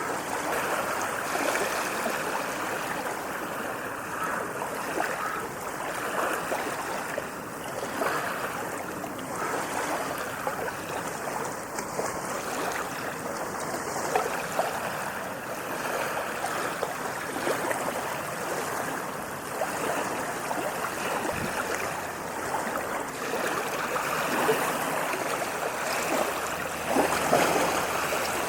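Ocean waves washing on a sandy beach: a steady rushing wash that swells and eases, with a somewhat louder surge near the end.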